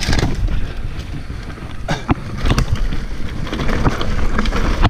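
Wind buffeting a helmet camera's microphone as an electric mountain bike rides a rough, rocky trail, with frequent short knocks and rattles from the bike jolting over the ground.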